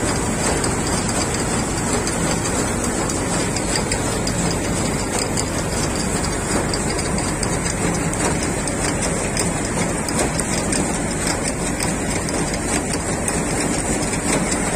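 Rice combine harvester running steadily, engine and machinery noise at a constant level.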